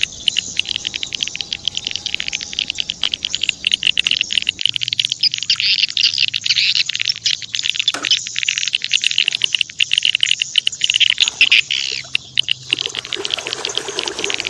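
Small birds chirping rapidly and continuously in a dense chatter, thinning out slightly near the end.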